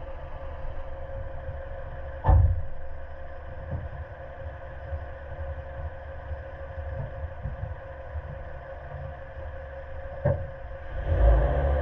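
Suzuki Jimny JB74 driving on a rough dirt track, its 1.5-litre four-cylinder petrol engine running steadily under a low rumble. Two sharp knocks come from the vehicle, one about two seconds in and one near the end, and the rumble grows louder in the last second.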